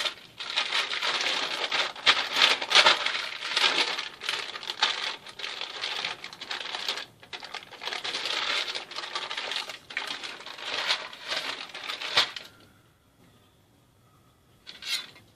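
Crinkly paper wrapper rustling and crackling as it is peeled off a sheet of laminating margarine. It stops about twelve seconds in, with one more short rustle near the end.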